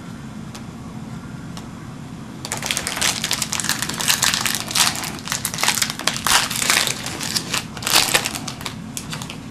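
A trading-card pack wrapper being torn open and crumpled, a dense run of irregular crinkling and crackling that starts about two and a half seconds in.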